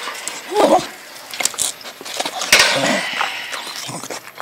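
Dogs at a metal kennel gate: repeated clinks and rattles of the bars and wire mesh, with a short dog whine under a second in and a louder rattling burst about two and a half seconds in.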